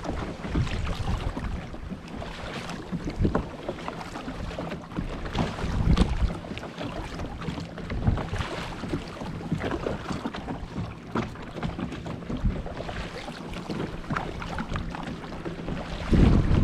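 Water splashing and lapping around a kayak being paddled, in short irregular splashes. Wind buffets the microphone with a low rumble, heaviest near the end.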